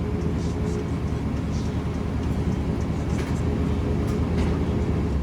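Box Chevy Caprice's carbureted engine idling steadily.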